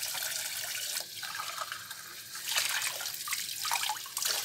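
Water pouring and trickling, dropping away for about a second and a half, then running louder again.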